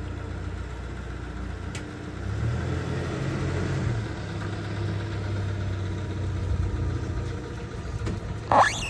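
USPS mail truck's engine running as it rolls slowly up to the curb, a steady low hum that grows louder about two seconds in. Near the end a brief loud vocal sound with a bending pitch cuts in over it.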